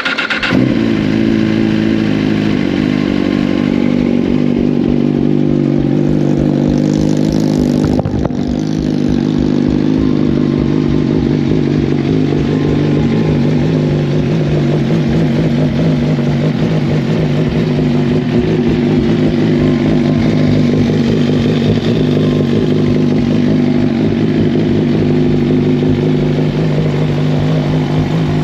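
A Suzuki GSX-R1000 motorcycle's inline-four engine running steadily at a loud, even level. Its note dips briefly about eight seconds in.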